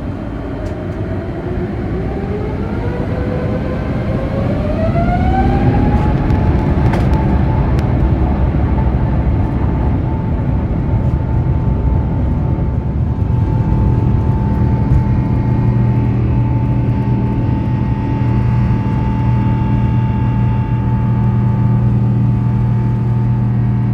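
Airbus A350's Rolls-Royce Trent XWB jet engines, heard from inside the cabin, spooling up with a rising whine over about five seconds, toward takeoff thrust. The whine then holds at a steady high pitch over a loud, steady rumble.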